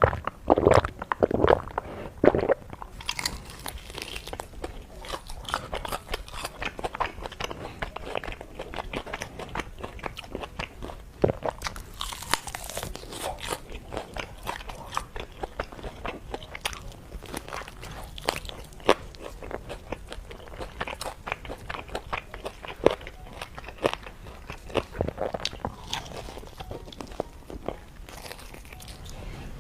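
Close-miked eating of crispy fried chicken: bites breaking the crunchy coating, then steady crackling chewing, with a few louder bites just after the start and about twelve seconds in.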